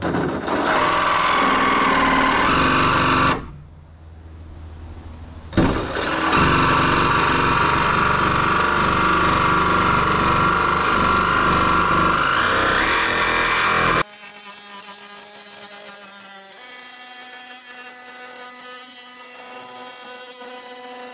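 Cordless drill boring pilot holes through the van's sheet-steel door panel: about three seconds of drilling, a short pause, then a longer run that starts with a sharp hit and rises in pitch near its end. About fourteen seconds in it cuts off, and a quieter steady hum of several even tones follows.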